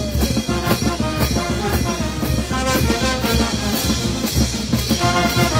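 Brass band of saxophones, trumpets and drums playing over a steady drum beat.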